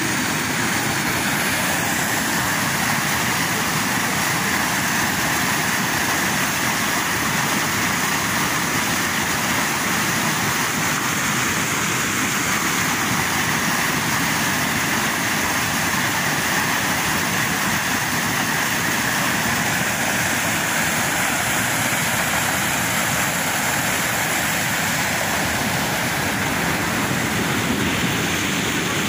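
Floodwater rushing steadily over a small dam's concrete spillway, which is overflowing because the reservoir is full after heavy rain.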